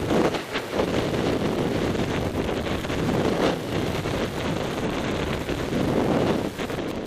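Wind rushing over a helmet-mounted camera's microphone during a fast snowboard run, mixed with the board sliding and scraping over packed snow. The rush swells and eases several times.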